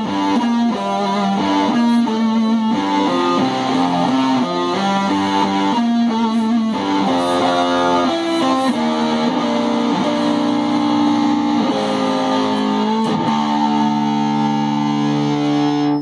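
Distorted electric guitar playing a metal riff of quickly changing notes, moving into slower held chords and closing on a long sustained chord near the end.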